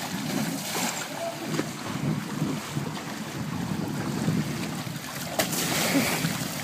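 Wind buffeting the microphone over water sloshing in a shallow inflatable pool, stirred by people rolling inside clear plastic water-walking balls, with a few sharp knocks and faint voices.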